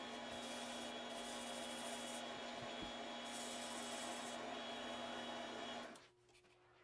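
Mini lathe running with a steady hum while a spinning epoxy-resin and wood ring blank is sanded by hand, a rubbing, hissing scrape over the motor. The sound cuts off suddenly about six seconds in, leaving only a faint tone.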